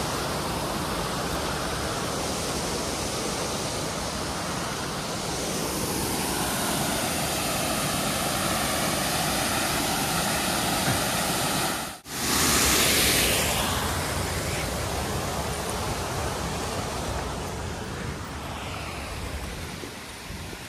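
Steady rush of water pouring over a small waterfall. About halfway through the sound drops out for an instant and comes back louder and brighter, then settles.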